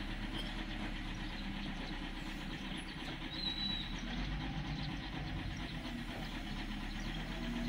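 Diesel engines of heavy equipment (a mobile crane and an excavator) running steadily at a low, even drone.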